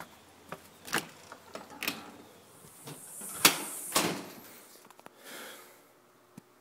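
Storm door and entry door being opened and shut: a string of latch clicks and knocks, the loudest bang about three and a half seconds in over a short rushing hiss.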